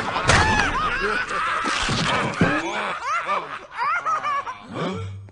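Several cartoon character voices laughing and snickering at once, overlapping. The laughter stops abruptly at the end.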